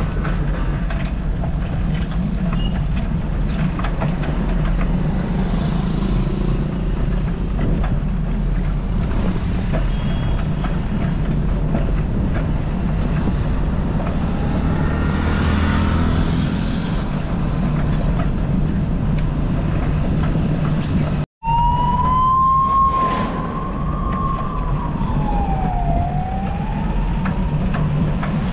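Steady wind buffeting and road rumble picked up while riding a bicycle along a road. About three-quarters of the way through, after a brief dropout, a single wailing tone rises and falls for several seconds.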